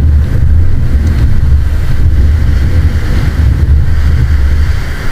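Wind buffeting the microphone, a loud, steady low rumble, with surf beneath it.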